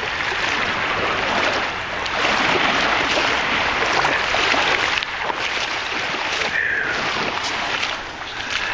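Water sloshing steadily around someone wading in shallow bay water.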